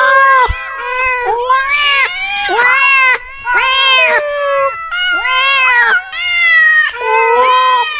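Domestic cats meowing loudly, one drawn-out call after another with hardly a break, some overlapping. Each call rises and falls in pitch.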